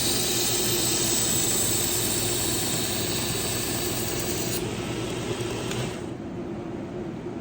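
Work Sharp Ken Onion Edition belt sharpener with its grinding attachment running, a kitchen knife blade ground on its 120-grit belt with a steady motor hum and a high-pitched grinding hiss. The grinding stops about four and a half seconds in, and the sound drops off about six seconds in.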